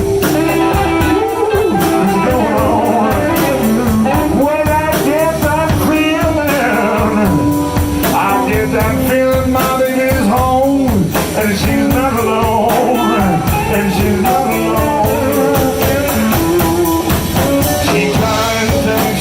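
Live blues band playing: a lead electric guitar with bending notes over bass and drums keeping a steady beat.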